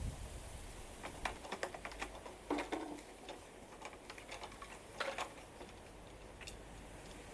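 Light clicks and knocks of containers being handled, a quick cluster about a second in, then a few single taps.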